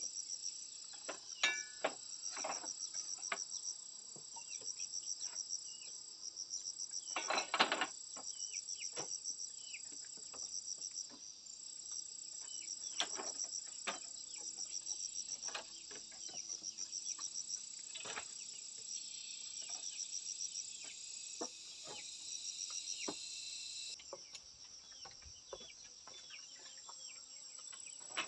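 A high-pitched, pulsing chorus of insects runs throughout, and part of it drops out near the end. Over it come scattered knocks and clatters of bamboo slats being handled and fitted into a wall, the loudest about seven seconds in.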